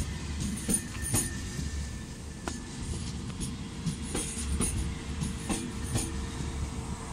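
ICE 1 high-speed train rolling past a platform: a steady low rumble with irregular clicks and clacks from the wheels, and a faint steady whine over it.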